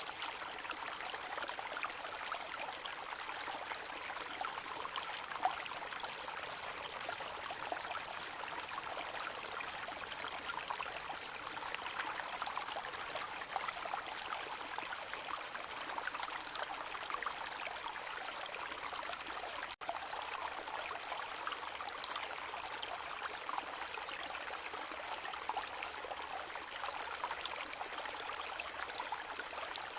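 A small brook babbling steadily, water trickling and splashing over stones in a continuous fine-grained rush. There is a momentary dropout about two-thirds of the way through.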